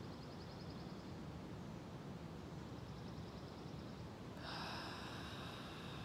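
Quiet outdoor ambience with a steady low hiss, faint high fluttering trills, and a louder steady high buzz that starts suddenly about four and a half seconds in.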